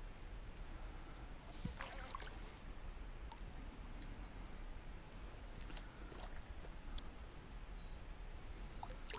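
Faint water lapping and splashing around a kayak while a small bass is fought on a fly rod, with a steady high-pitched hum. A few small clicks and chirps come about two seconds in, near six seconds and near the end.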